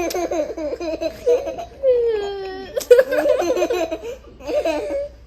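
A young child laughing in repeated high-pitched bursts.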